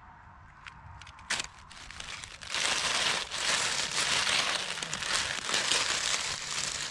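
Dry fallen oak leaves crackling and crunching as a toy monster truck is pushed along through them. It starts about two and a half seconds in, after a few faint clicks of handling.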